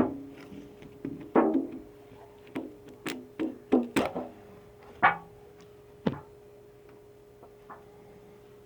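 Plastic container being handled and its lid worked open: a run of sharp knocks and clicks, thinning out after about six seconds, over a faint steady hum.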